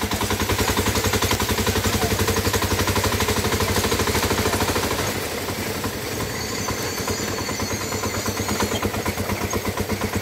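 Small engine of a motor vehicle running underway, a rapid, even train of thuds that eases a little about halfway through.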